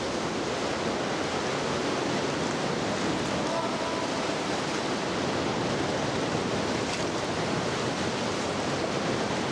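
Steady rush of churning sea water as swell surges among the rocks around a sea cave.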